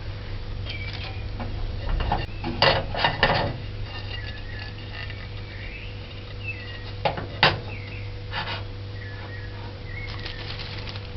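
Metal cake pan and utensils clattering and knocking as the baked cake is turned out of the pan and its paper lining pulled away. The knocks come in small groups: several about two to three seconds in, two sharp ones about seven seconds in. Faint short chirps and a low hum run underneath.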